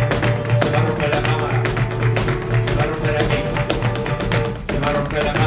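Live flamenco: acoustic guitar playing under the rapid heel-and-toe stamping of dancers' shoes on a wooden stage, a dense, steady run of sharp taps.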